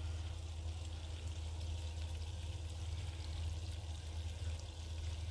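Sugar-and-water syrup at a rolling boil in a saucepan, a steady fine bubbling and fizzing over a constant low hum; the syrup is right at about 121 °C, the thread stage.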